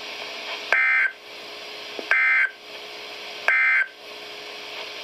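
Three short bursts of the Emergency Alert System's digital end-of-message data signal over NOAA Weather Radio, each about a third of a second long and about 1.4 s apart. The rapid, warbling two-tone digital chirps sound over steady radio hiss and mark the close of the broadcast weekly test message.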